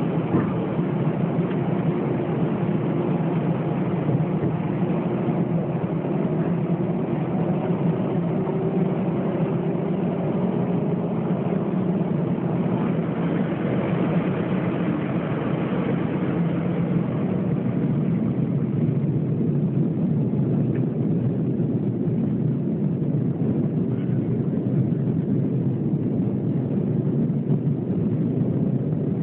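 Airbus A320's jet engines heard from inside the cabin at the start of the takeoff run: a steady loud hum with several tones, one rising slowly in pitch in the first half as the engines spool up.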